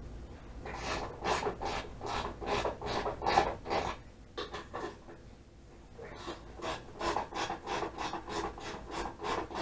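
Socket ratchet worked back and forth in quick strokes, about three a second, its pawl rasping as it turns out a 12 mm windshield mounting bolt on a motorcycle. The strokes come in two runs with a short pause around the middle.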